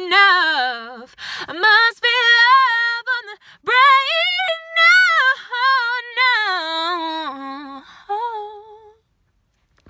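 A woman singing unaccompanied, wordless runs and long held notes that waver in pitch, trailing off about nine seconds in.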